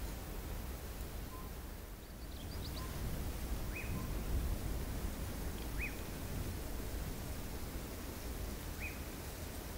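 Steady low wind rumble on the microphone, with a few short high chirps spaced two to three seconds apart from an animal or bird.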